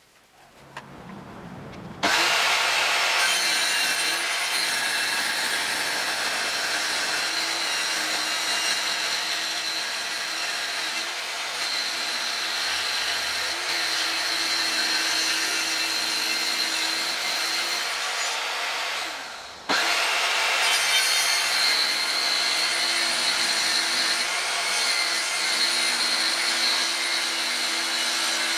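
Table-mounted circular saw ripping a pine board: a steady motor whine and cutting noise that start about two seconds in, break off briefly about two-thirds through, then run on through a second cut.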